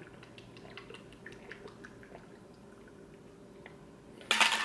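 A person gulping a protein shake from a plastic shaker bottle: faint, irregular wet swallowing clicks. The drinking ends with a short, loud breath near the end.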